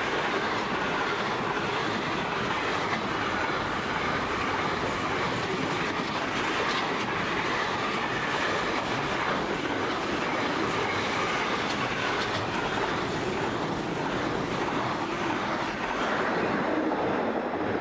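Container wagons of a long freight train rolling past on the near track: a steady rumble and clatter of steel wheels on the rails.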